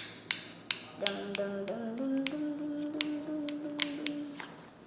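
Slime being squeezed and handled, giving irregular sharp clicks and pops. From about a second in, a voice hums a low note for about three seconds, stepping up in pitch.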